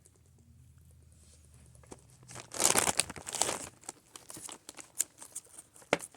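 Crinkly plastic packaging being handled, rustling and crackling in irregular bursts that start about two and a half seconds in, with a sharp click near the end.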